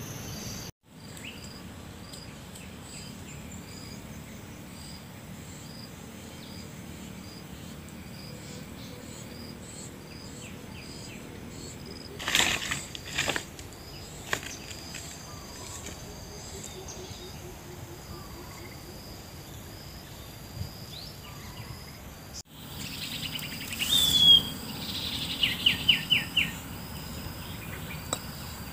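Insects chirring steadily with an evenly pulsing high call, with occasional bird calls. A few sharp knocks come about halfway through, and a bird's quick series of repeated chirps sounds near the end.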